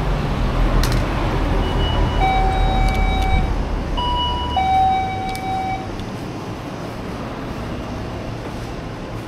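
Wind and road traffic noise heard while riding an electric scooter, with a low rumble that fades about halfway through. Two steady pitched tones, each about a second long, sound about two and four and a half seconds in.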